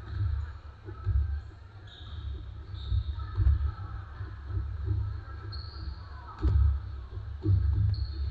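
A basketball bouncing on a hardwood gym floor in irregular thumps roughly once a second as players dribble, with short high squeaks of sneakers on the court, echoing in a large hall.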